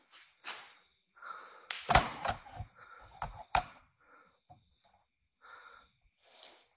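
A few sharp thumps and knocks, the loudest cluster about two seconds in and two more a little over a second later, among faint scattered rustles.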